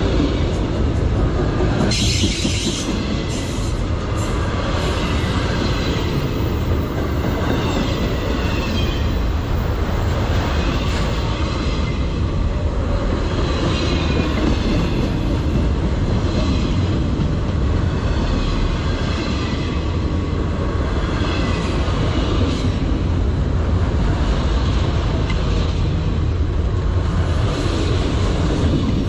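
Freight train of autorack cars rolling past close by: a steady heavy rumble of steel wheels on rail, with a sharp clatter about two seconds in. A higher metallic wheel squeal swells and fades every couple of seconds.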